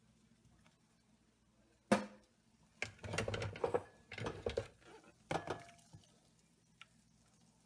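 Kitchenware knocking and clattering as cauliflower puree is emptied from a plastic food-processor bowl into a ceramic bowl: a sharp knock, a run of clattering knocks, then another knock with a short ring.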